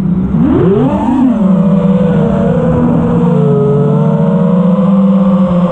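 FPV quadcopter's brushless motors and propellers whining, picked up by its onboard GoPro Session 5. The pitch dips and swoops up and down sharply with the throttle in the first second or so, then holds a steadier, lower hum of several close tones.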